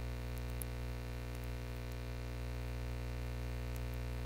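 Steady electrical mains hum with its overtones, picked up by the recording setup, with a few faint clicks.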